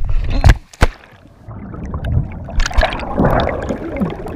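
Rushing, buffeting wind noise on a GoPro during a feet-first jump from a high bridge. After a brief lull about a second in, the plunge into the river follows, then underwater churning and gurgling of bubbles around the camera.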